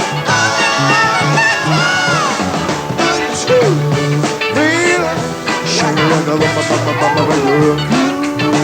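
Live rock band playing an upbeat 1950s-style rock and roll number, with a steady repeating bass line under sliding melodic lines.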